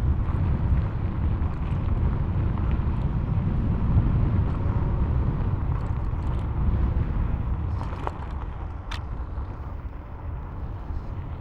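Isinwheel GT1 electric scooter being ridden off-road: a steady low rumble of the tyres over rough ground and wind on the microphone, easing off about eight seconds in. A single sharp knock comes about nine seconds in.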